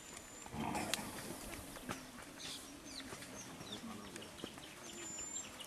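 Outdoor ambience of birds chirping and whistling, with scattered small clicks and knocks.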